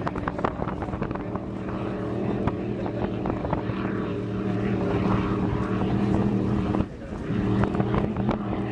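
Powerboat engine running at a steady pitch, dropping out briefly about seven seconds in, then picking up again.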